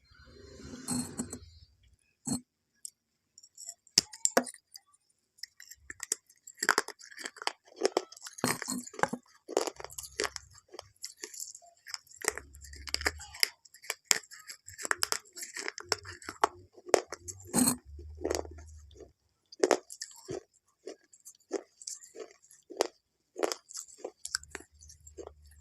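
Crunchy food being chewed: short, irregular crunches a few times a second, with low thumps in between.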